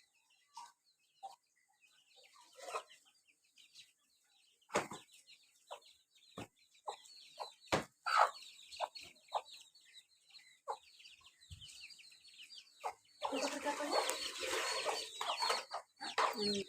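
Hen clucking while her chicks peep, feeding together, with a few sharp taps among the calls. About thirteen seconds in the calls grow denser and louder, many overlapping at once.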